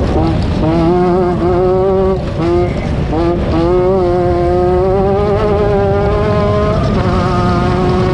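Off-road race vehicle engine running hard at high revs, its note climbing through the gears. The pitch breaks off briefly about two seconds in and again just after three seconds, then pulls up in a long climb before levelling off near the end.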